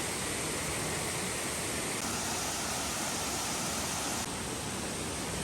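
A steady rushing noise with no separate events; its tone shifts abruptly twice, about two and four seconds in.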